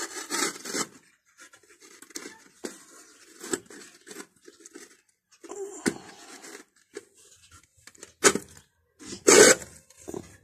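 A bare hand digging and scraping through the dry ash of burnt pigeon droppings inside an earthen pot, giving irregular scratching and crumbling sounds, with louder scrapes about eight and nine seconds in.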